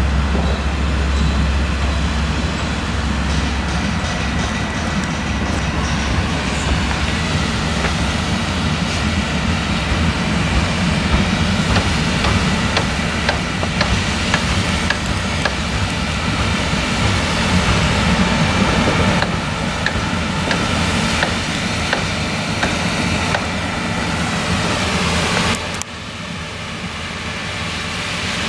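New Holland CX combine harvester running under load while harvesting corn with an 8-row Geringhoff corn header: a steady, heavy engine and threshing drone with scattered crackles and clicks. The sound drops suddenly near the end, then swells again.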